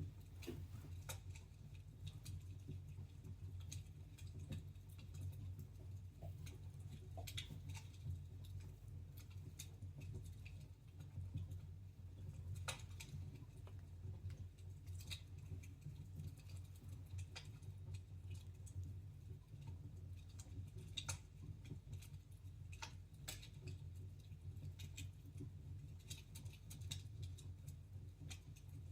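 Fire burning in a fireplace, crackling with sharp, irregular pops over a steady low hum.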